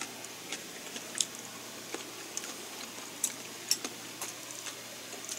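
Someone eating: irregular small clicks and taps of chewing and tableware, about one or two a second over faint room hiss.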